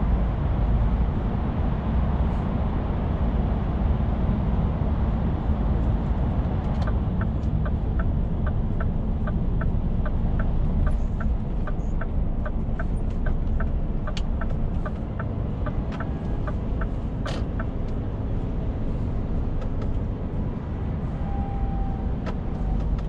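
Scania truck's diesel engine and road noise heard inside the cab, a steady low rumble. About seven seconds in, the turn-signal indicator starts ticking at about three clicks a second for some ten seconds, then stops with a sharper click.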